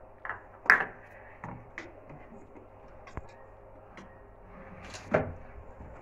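Plastic knocks and clicks from the detergent drawer of an LG front-loading washing machine and a plastic detergent dosing cup being handled in it. The two loudest knocks come about a second in and again near the end, with lighter clicks between.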